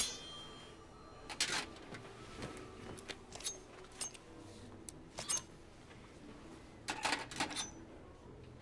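Knives being drawn and handled: a sharp metallic ring of a blade at the start, then scattered metal clicks, scrapes and clinks, with a cluster of them near the end.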